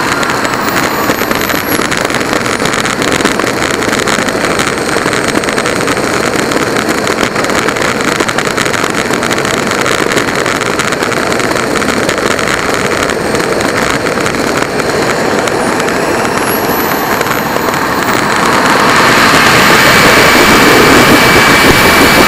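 Small model-jet turbine engine running at low power with the rumble of its wheels over rough asphalt while taxiing, a thin high whine gliding down and later back up. Near the end it grows louder as the turbine spools up for the takeoff roll.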